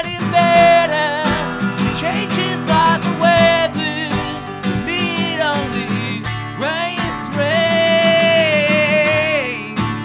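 Live acoustic song: a man sings over a strummed acoustic guitar, holding one long wavering note in the second half.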